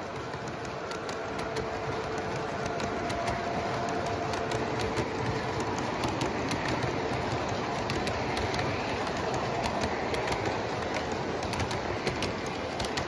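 O-gauge model freight cars rolling past on three-rail track: a steady rumble of wheels with many sharp clicks as they pass over the rail joints. A faint steady tone stops about halfway through.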